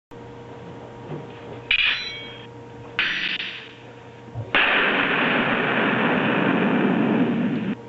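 Action sound effects played back as motion-triggered hits: two sudden strikes with a ringing metallic edge about two and three seconds in, then a loud blast-like rush lasting about three seconds that cuts off abruptly. A steady electrical hum runs underneath.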